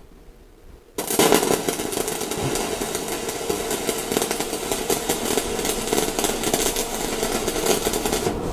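Shielded metal arc (stick) welding with a 3.2 mm covered electrode at 130 amps: the arc is struck about a second in, then crackles and sizzles steadily as a trial bead is run on scrap steel.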